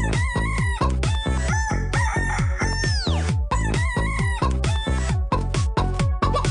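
Techno dance track made from sampled chicken clucks and rooster crowing over a steady thumping kick drum, with a long falling sweep about three seconds in.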